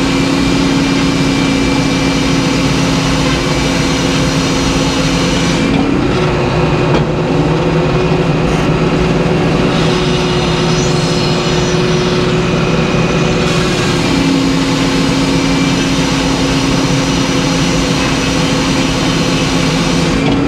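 Large circular sawmill blade and the mill's power plant running hard while sawing a white pine log. A steady tone drops in pitch while the blade is in the cut, rises about six seconds in as the blade runs free, and drops again about fourteen seconds in as the next cut begins.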